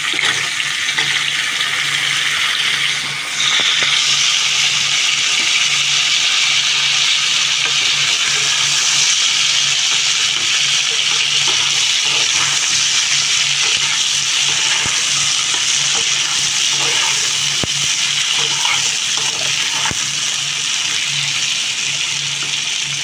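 Potato and taro (kochu) pieces frying in hot oil in a kadai: a loud, steady sizzle that swells about three seconds in.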